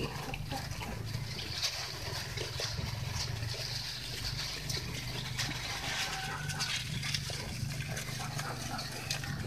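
Goats munching chopped dwarf elephant grass (odot) at a feed trough: irregular crunching and leaf rustling as they pull and chew the stalks, over a steady low hum.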